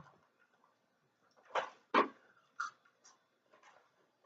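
Eating and food-handling noises: about four short, soft clicks and rustles, the loudest two close together just before the middle.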